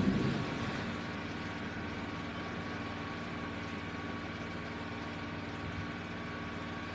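A steady engine drone with a brief louder swell right at the start.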